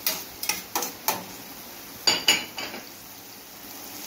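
Metal spoon clinking and scraping against an enamel pan while stirring chopped onion and scallion, a string of short knocks with the loudest pair about two seconds in.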